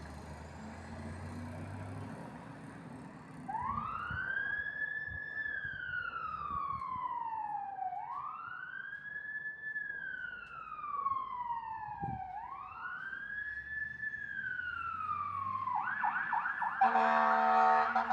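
Fire engine's siren starting up over the engine rumble, then wailing in three slow cycles, each rising quickly and falling slowly. Near the end it switches to a rapid yelp and a loud horn blast comes in.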